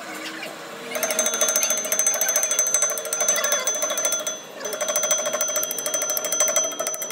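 A steel chain rattles fast and evenly against a freshly welded axle hub flange held in a lathe chuck, over a steady ringing tone. It starts about a second in and stops briefly a little past halfway.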